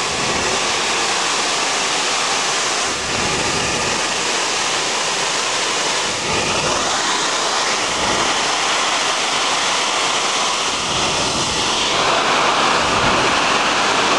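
Steady, loud hiss of crude oil escaping as gas under pressure from a leaking buried oil pipeline, jetting out of the ground.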